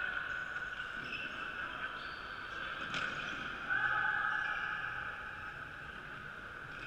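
Many players' sneakers squeaking on the wooden sports-hall floor as they run and cut in an ultimate frisbee game: a high squeal that shifts in pitch and comes and goes, louder about four seconds in, with one sharp knock about three seconds in.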